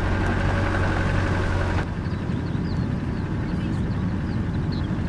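Vehicle engine and drive noise, a steady low hum, on an unsealed lane. About two seconds in the sound changes abruptly and the higher noise drops away, leaving a low rumble with faint short bird chirps.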